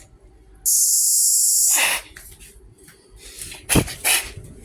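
Cicada buzzing, a loud steady high-pitched hiss that breaks off briefly, starts again and cuts off suddenly after about a second. Two sharp knocks follow near the end.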